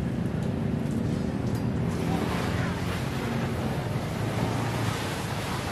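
Steady street-stall ambience: a continuous low rumble of traffic and background noise with no distinct events.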